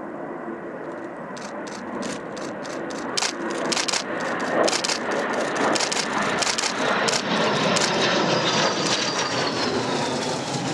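Textron AirLand Scorpion twin-turbofan jet flying low past: the engine noise builds over the first few seconds and holds loud, with a whine that falls in pitch near the end as the jet goes by. A run of sharp clicks sounds through the middle.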